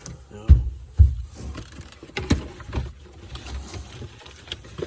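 Two heavy low thumps about half a second apart, then scattered clicks and knocks: hands handling wiring and parts during a car audio install.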